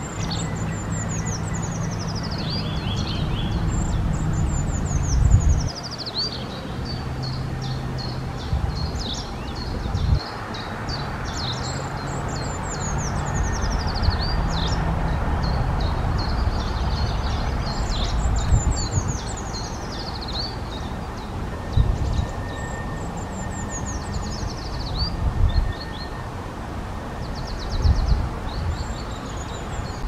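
A treecreeper singing several times: each song is a high, thin trill that slides downward. A steady low engine-like rumble runs underneath.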